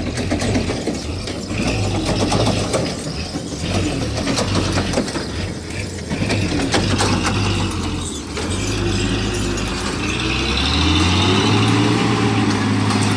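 Heavy truck's diesel engine working hard under load as it pulls out of soft sand, with clanks and rattles from the truck. Near the end the engine note rises and gets louder as it pulls away.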